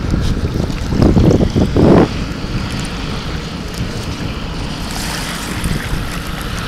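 Small, choppy waves washing and splashing against the side of an inflated AquaDam water-filled barrier tube, under steady wind buffeting the microphone, with louder gusts between about one and two seconds in.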